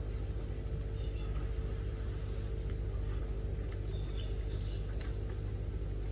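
Steady low mechanical hum fills the room, with a few faint clicks and rustles over it.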